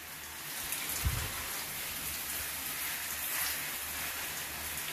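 Handheld shower spray falling on areca palm fronds: a steady hiss of water on leaves, with a brief low thump about a second in.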